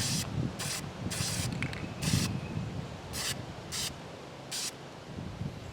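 Aerosol spray-paint can hissing in about seven short bursts, each a fraction of a second long.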